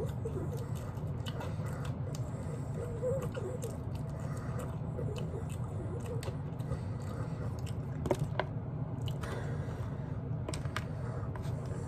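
Close-up eating sounds: chewing and biting as meat is gnawed off a barbecue rib bone, with many small wet mouth clicks over a steady low hum, and a sharper pair of clicks about eight seconds in.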